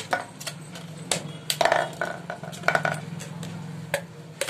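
Thin plastic water bottle handled and turned in the hand: irregular clicks, crackles and light knocks of the plastic, over a steady low hum.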